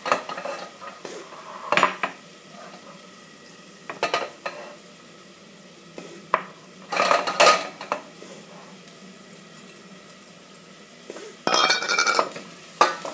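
Cooking utensils knocking and scraping against a pot in several short clattering bursts, over a faint steady sizzle of onion and garlic frying in oil on low heat.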